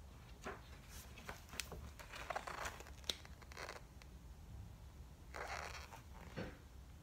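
Paper pages of a book being turned and the book handled: soft rustles in short bursts, with one sharp tick about three seconds in and another spell of rustling near the end.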